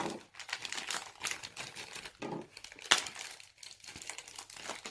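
Plastic blind-bag packaging crinkling as it is handled and opened, with irregular crackles and a sharper click about three seconds in.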